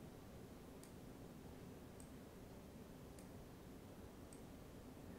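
Faint computer mouse clicks, four of them about a second apart, over quiet room tone.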